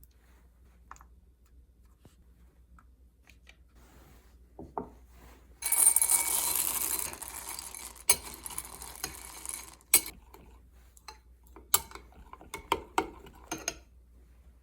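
Kitchen handling sounds. A knock, then a loud rattling rush lasting about a second and a half that trails off, then a run of sharp clinks, like utensils against dishes.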